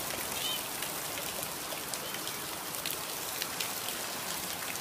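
Steady rain falling, with frequent sharp ticks of nearby drops.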